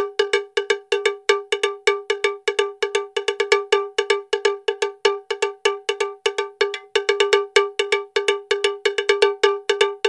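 Rapid bell-like percussion, one pitched metallic hit repeated about five times a second, stopping at the very end.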